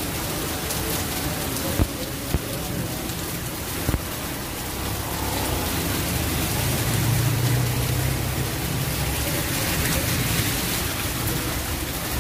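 Heavy rain pouring onto a flooded street, a steady dense hiss. A low vehicle hum swells in the middle, and there are a few sharp clicks in the first four seconds.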